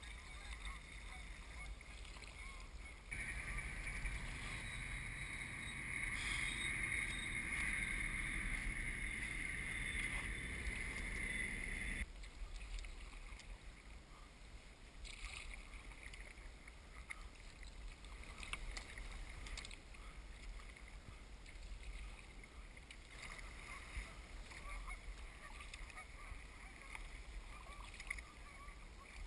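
Kayak paddling on calm water: paddle strokes and water lapping at the hull, with small splashes and drips. A louder steady rush comes in a few seconds in and cuts off suddenly about nine seconds later.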